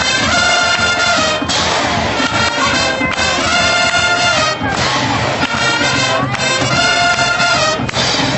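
High school marching band playing, led by loud brass in held chords that change about every second and a half.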